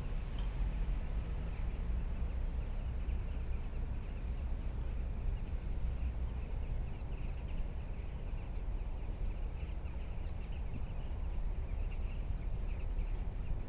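Wind buffeting the microphone with a steady low rumble, under many short bird calls repeated throughout, as of a flock calling.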